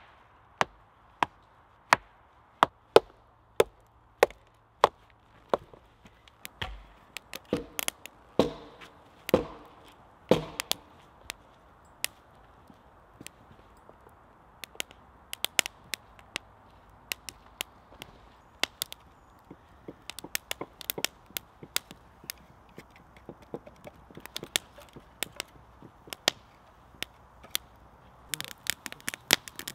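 Sharp knocks about twice a second, then a run of heavier thuds, as stones are tapped and set into place lining a stone fire pit. After that come scattered light cracks from a newly lit wood fire, and near the end a denser clatter as split wood is stacked onto it.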